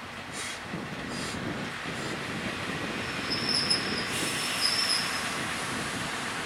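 NS 20 'Kameel' diesel railcar rolling slowly past, its running noise building. Two short, high wheel squeals come a bit past halfway, and two brief clicks sound within the first second or so.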